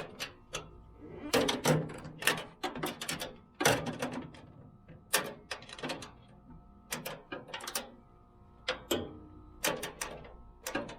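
Hand tools clicking and clinking against the metal tool cart's nuts and bolts, a series of sharp, irregular metallic knocks as a wrench works a nut in a tight spot.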